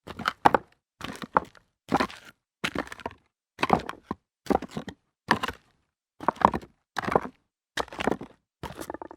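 Footsteps walking on rocks at a steady pace, about two steps a second, each step a short crunch and clatter of stones shifting underfoot.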